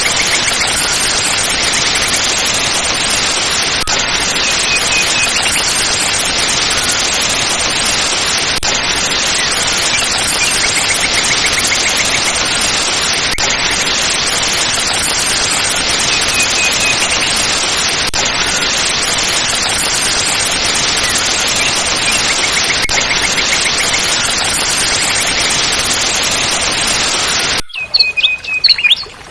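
Close-up rushing water of a small waterfall, a loud steady hiss, with faint bird trills over it. It cuts off abruptly near the end, leaving birds chirping.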